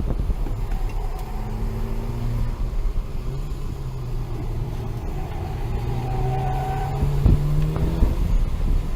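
Engine of a 2008 Volkswagen GTI, a turbocharged four-cylinder, heard from inside the cabin with road noise during hard downhill driving. Its pitch climbs in the second half as the car accelerates.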